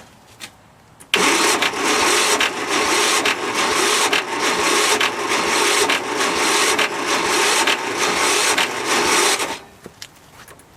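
A 13 hp Tecumseh single-cylinder engine on a Murray riding mower cranking on its electric starter for about eight seconds without catching. It is puffing with each stroke, a sign of good compression, then the starter stops abruptly.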